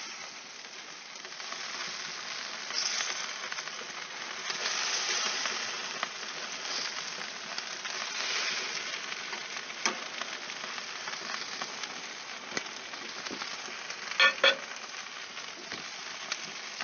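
Bacon-wrapped chicken sizzling and crackling steadily on a hot gas barbecue grill. Metal tongs clink against the skewers and rack a few times, with two sharp clinks about two-thirds of the way through.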